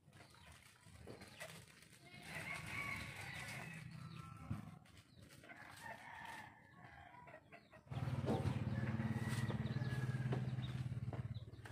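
A rooster crowing about two seconds in. Over the last few seconds a louder steady low hum from an unseen source.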